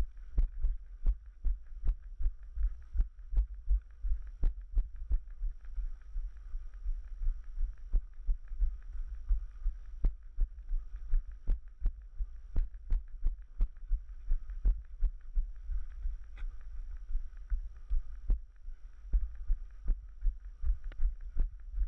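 Dull thumps of running footfalls on a dirt trail, about three a second, carried through a body-mounted action camera over a steady low rumble.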